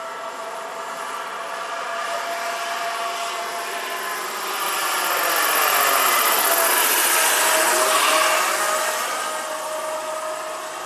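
Turbine whine and rotor noise from a large radio-controlled CH-46 tandem-rotor model helicopter in flight. It grows louder as the model passes close overhead about halfway through, then fades as it flies off.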